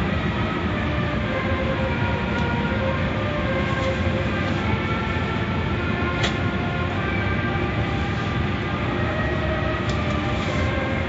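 Automatic car wash machinery running, heard from inside the car: a steady mechanical rushing noise with faint whining tones and a few light ticks.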